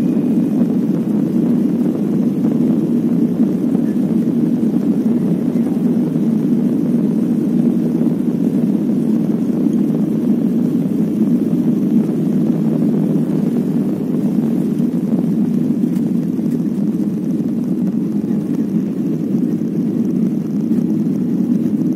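Jet airliner cabin at takeoff: a loud, steady rumble of the engines at takeoff power as the plane speeds down the runway and lifts off.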